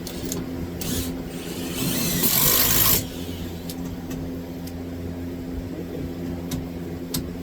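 Cordless drill driving a screw into 2x4 framing: a short run, then a louder run of about a second and a half that stops abruptly, over a steady low hum. A few light clicks follow near the end.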